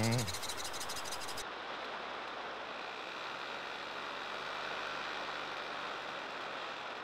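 Steady rushing noise of air and motor heard from a camera on a low-flying aircraft, after music cuts off in the first moment.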